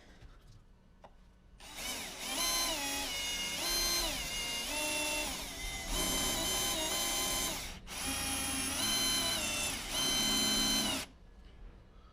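Electric drill whining as it bores into a rusted steel bracket, the motor speed rising and falling in spurts with a brief pause about two-thirds of the way through, then stopping near the end. The bit is making no headway through the metal.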